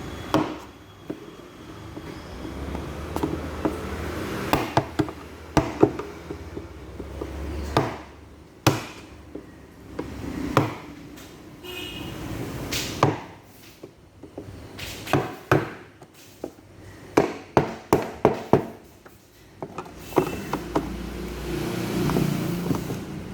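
Chisel being struck with a hammer to cut through a washing machine drum: a series of sharp metal knocks at an irregular pace, coming in a quick run of blows past the middle.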